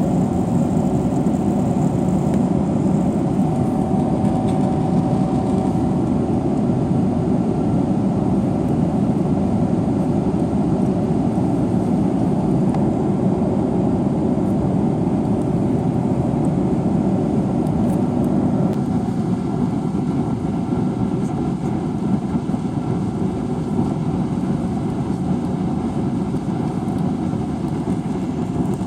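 Steady rumble of a Boeing 777-300ER's GE90 jet engines and airflow, heard inside the cabin. A few faint steady tones join in about two-thirds of the way through.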